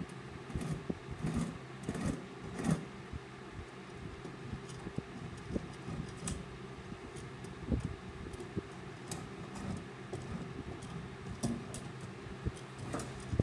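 Hand spokeshave scraping and shaving along a wooden edge in short irregular strokes, its blade set to take a light cut, with small clicks of the metal tool being handled, over a steady background hum.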